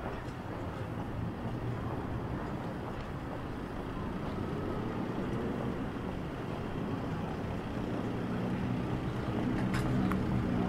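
Steady low rumble of vehicle engines and street noise, growing slowly louder toward the end.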